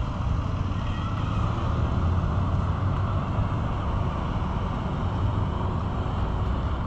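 Steady low rumble of a motor vehicle's engine running close by, with street traffic noise.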